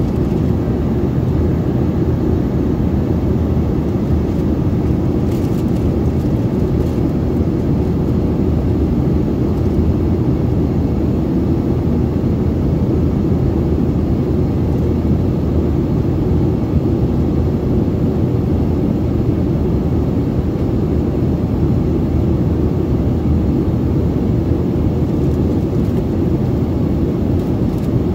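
Steady cabin noise aboard an Embraer 145 regional jet on its descent: an even, low rush of engine and airflow noise that does not change.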